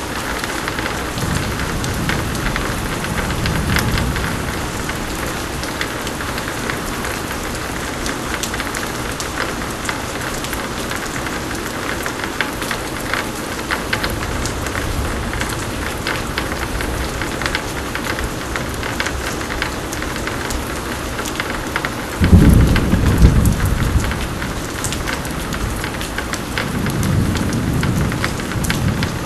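Pouring rain falling steadily with dense patter, under thunder from a thunderstorm. A low rumble rolls in the first few seconds. About three-quarters of the way through comes a sudden loud thunderclap that rolls on for a couple of seconds, the loudest sound here, and another rumble follows near the end.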